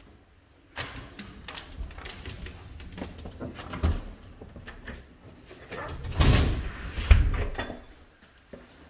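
A glass storm door being pushed open and swinging shut: a run of clicks and knocks, then two heavier thuds about a second apart near the end.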